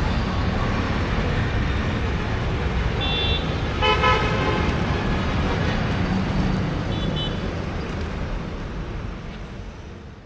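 Street traffic with vehicle horns: a short high toot about three seconds in, a longer, louder horn blast just after four seconds, and another brief toot near seven seconds. The traffic noise fades out near the end.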